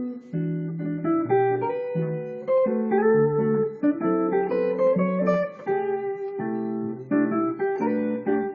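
Clean-toned hollow-body electric guitar playing a jazz improvisation: chords of several notes at once, changing about every half second.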